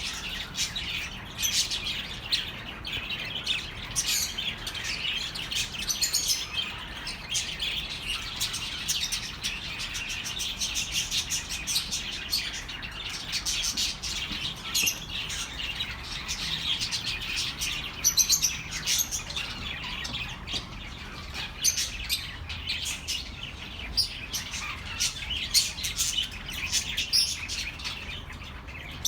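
Budgerigars chattering: many short, high chirps and warbles overlapping without a break, as from several birds together.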